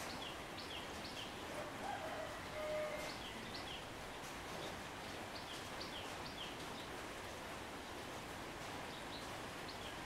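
Small birds chirping in short, high notes that repeat every half second or so, often in pairs, over a steady outdoor hiss, with a brief lower call about two and a half seconds in.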